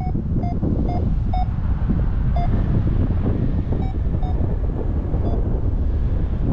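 Wind rushing over the microphone in flight, the loudest sound throughout. Over it a paragliding variometer gives short, pitched beeps, about eight of them, some half a second apart and some with longer gaps, the audio signal of climbing in rising air.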